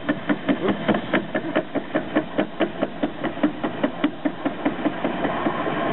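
Homemade Gingery lathe cutting steel at 300 rpm, the tool knocking about five times a second, once per spindle turn, as it passes over a set screw that the owner believes is a different material from the workpiece. The knocking stops near the end, leaving the steady running of the lathe.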